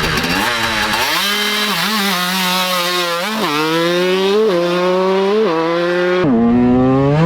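1996 Yamaha YZ125 two-stroke engine with a Pro Circuit exhaust running hard and high-pitched, its revs rising and dropping back several times as the throttle is worked.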